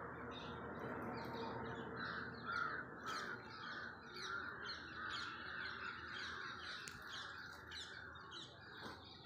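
Birds calling outdoors: many short chirps overlap throughout, with a run of louder, harsher calls about two to three seconds in.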